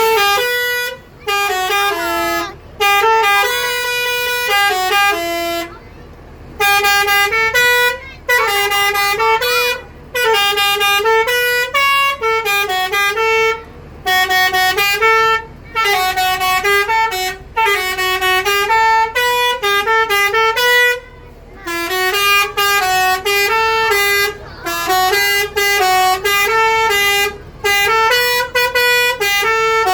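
Telolet musical air horn on an Indonesian bus playing a tune: loud horn notes stepping up and down in pitch in short melodic phrases, with brief pauses between phrases.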